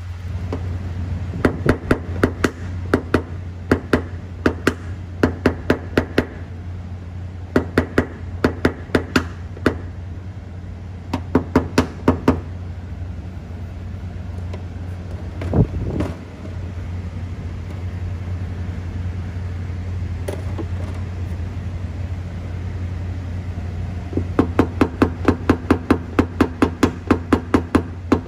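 Rapid light taps of a PDR hammer on a knockdown punch, tapping down the high spots along a car's body-line dent. The taps come in runs of about five a second with pauses between, over a steady low hum, and there is one duller thump a little past halfway.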